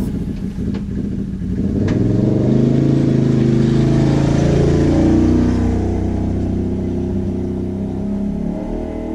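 Can-Am Renegade XMR 1000R ATV's V-twin engine accelerating as the quad rides up close, then pulling away and fading out after about five seconds.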